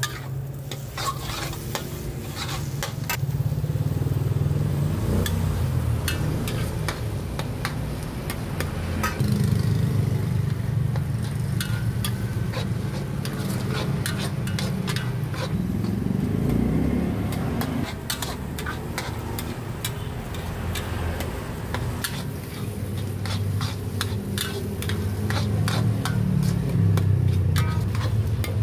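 Metal spatula repeatedly clanging and scraping against a wok as food is stir-fried, with sizzling frying and a steady low rumble underneath.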